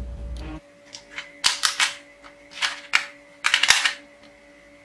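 Background music cuts off about half a second in. After that comes a run of short plastic clicks and rattles as a hard-plastic toy pistol and its foam darts are handled and a dart is pushed into the muzzle, with a denser cluster of clicks near the end.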